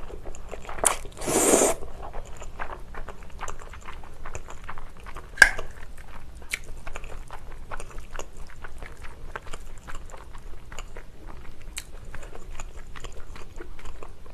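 Close-miked mouth sounds of eating noodle pasta with spaghetti and Chinese glass noodles: a long slurp about a second in, then steady wet chewing with many small clicks. A single sharp click, the loudest sound, about five seconds in.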